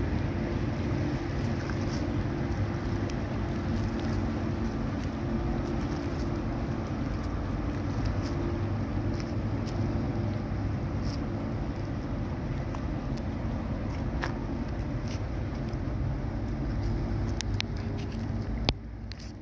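Diesel engines of the lake freighter Great Republic droning as the ship passes close by: a steady low rumble with a constant hum. The level falls off suddenly shortly before the end.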